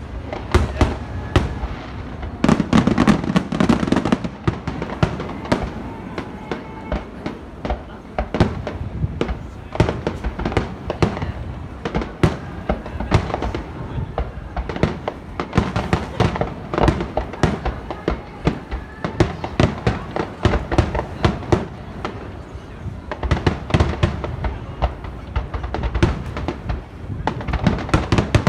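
Fireworks display at its climax: a rapid, unbroken string of shell bursts and crackles, with a heavier, deeper burst about three seconds in.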